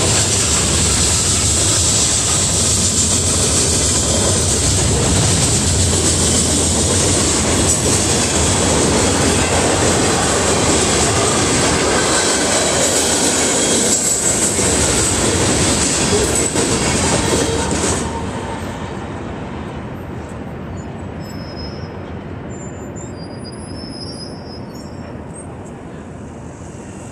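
Freight cars rolling past over a grade crossing, wheels clattering on the rails with a steady high-pitched wheel squeal. About 18 seconds in the last car clears, the noise drops sharply, and it fades as the train moves off.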